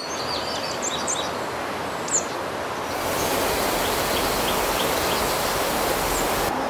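Small birds chirping over a steady outdoor rush. About three seconds in, the rush becomes brighter and fuller, like a shallow creek running, and the chirps carry on over it.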